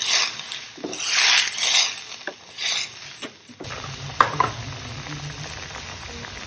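A steel spoon stirring a watery potato curry in a steel kadhai, with sloshing swishes and a few clinks against the pan. From about halfway it gives way to the steadier bubbling of the curry simmering on the boil.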